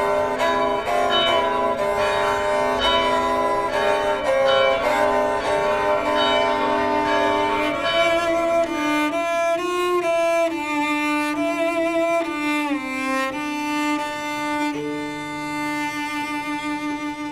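Bowed string instrument playing a melody: quick, short notes for roughly the first half, then slower held notes with slides in pitch over a sustained lower note.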